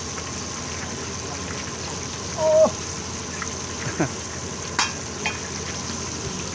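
Dumplings deep-frying in a large wok of hot oil, with a steady bubbling sizzle. A brief, loud tonal sound comes about two and a half seconds in, the loudest thing heard, followed by a couple of sharp clicks near the end.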